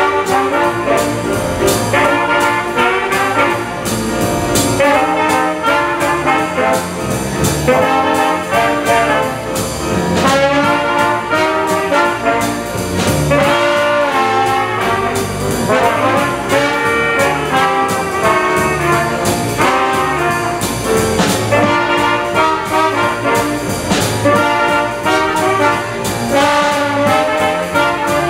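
A small jazz band playing live: trumpet and trombone play the lead lines together over piano and drums.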